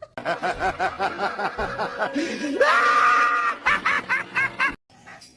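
A person laughing hard in quick pulses, breaking into a rising, held shriek just under halfway through, then laughing again. The laughter cuts off suddenly near the end.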